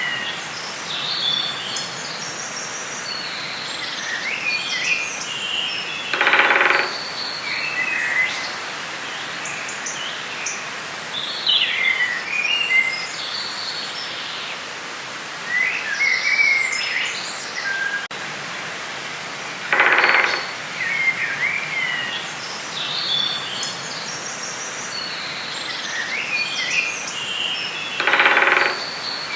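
Forest ambience: many small birds chirping and singing in short phrases over a steady outdoor hiss. A louder, lower, harsher call comes three times, each lasting about a second.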